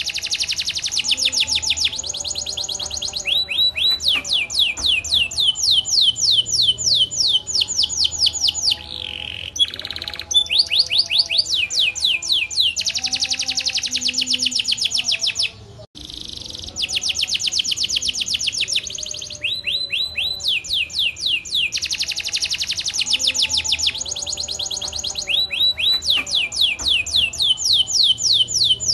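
Canary singing a long, fast rolling song: rapid runs of repeated downward-sliding notes that change speed and pitch from phrase to phrase. The song breaks off briefly about halfway through.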